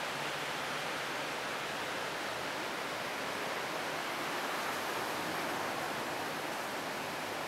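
Steady rushing of a rocky mountain river running over rapids below.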